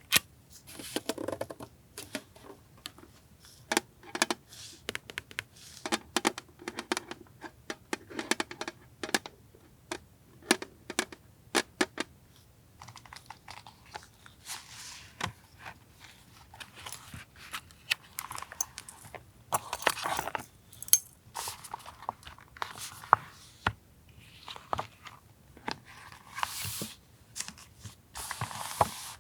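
Paper goods and crinkly plastic packaging handled on a desk: a string of light taps and clicks, then longer stretches of crinkling and rustling in the second half.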